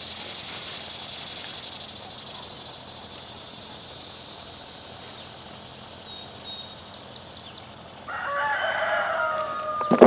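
Insects buzzing in a steady high band throughout, with a rooster crowing once for about two seconds near the end.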